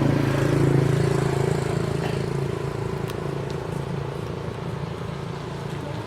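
A motor vehicle's engine running with a steady hum that grows fainter from about two seconds in.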